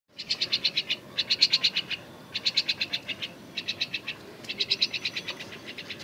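A young common myna calls in fast pulsed chatter, about a dozen pulses a second. The calls come in five runs of under a second each, with short pauses between.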